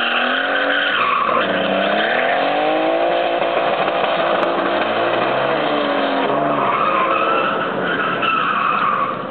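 Mazda MX-5's four-cylinder engine revving up and down through a drift, with the tyres squealing over it as they slide. The sound drops away near the end.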